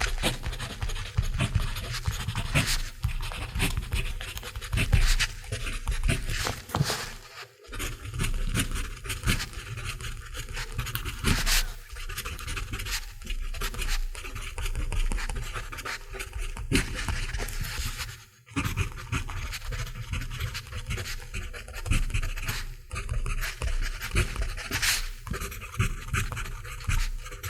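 Mechanical pencil writing on paper: a continuous run of quick scratching strokes, with brief pauses about 7.5 and 18.5 seconds in.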